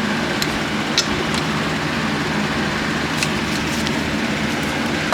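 A steady mechanical hum and hiss with a few light, sharp clicks scattered through it.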